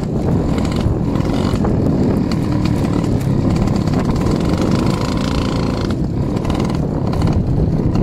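Moped engine running steadily on the move, under heavy low wind rumble on the microphone.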